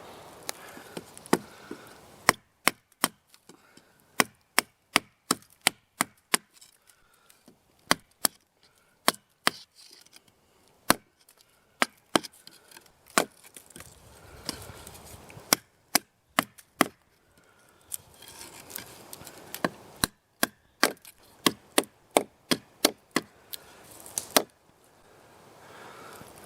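A small gardening spade chopping into dry ground again and again: sharp knocks about one to two a second, in irregular runs with short pauses.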